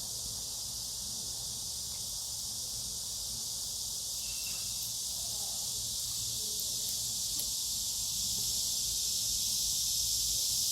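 Steady high-pitched chorus of insects, growing slightly louder over the seconds.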